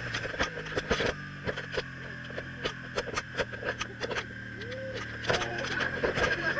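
BMW R1200CL's boxer-twin engine running steadily under way, picked up by a mounted camera, with frequent sharp knocks and crackles on the microphone and a short rising-and-falling tone about five seconds in.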